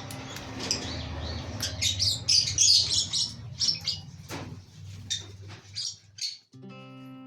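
A colony of lovebirds chattering, with many short, sharp, high-pitched chirps and squawks. Near the end the birds stop and acoustic guitar music comes in.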